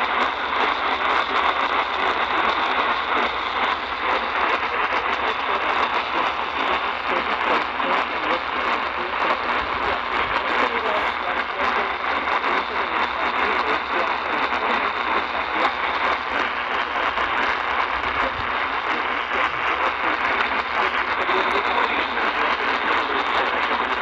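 Steady AM radio hiss and static from an Eton portable radio's speaker, tuned to 950 kHz, with a faint steady high whistle.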